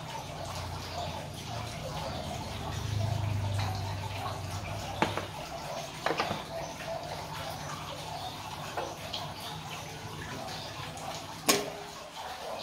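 Kitchen handling while ground coffee is scooped into a stainless-steel pour-over filter: a few sharp clicks and knocks from a wooden scoop and a glass coffee jar with a bamboo lid, the loudest near the end. A low steady hum runs underneath.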